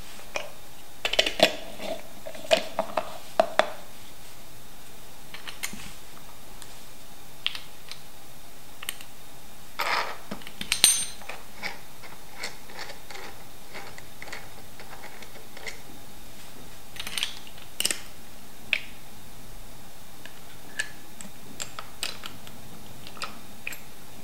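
Clicks, knocks and clinks of a Hario Skerton+ hand coffee grinder's plastic hopper, glass jar and metal parts being handled and fitted together. They come in small clusters: a flurry in the first few seconds, more around ten seconds in, and again near the end. A steady hiss runs underneath.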